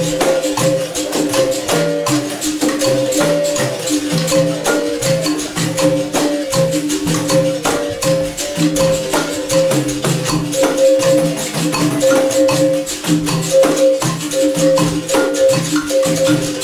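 Capoeira roda music: berimbaus struck in a steady rhythm with caxixi shakers rattling, the notes switching back and forth between two pitches.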